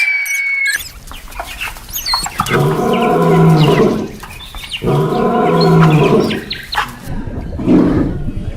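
A large animal gives two long low calls a little over two seconds apart, each lasting about a second and a half, while birds chirp.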